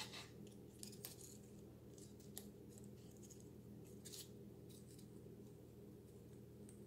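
Near silence with a steady low hum and scattered faint crisp ticks and rustles: hands handling a gum paste flower as thin floral wire is wrapped down around its stem.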